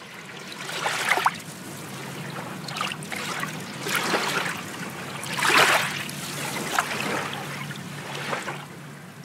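Splashing, sloshing water sound effect that rises in surges about every one to two seconds over a faint steady low hum.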